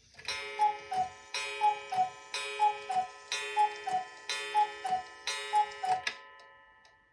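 Carved-style German Black Forest cuckoo clock striking six: six cuckoo calls about a second apart, each a two-note falling 'cu-ckoo' with a ringing gong strike under it. The ringing fades out after the last call.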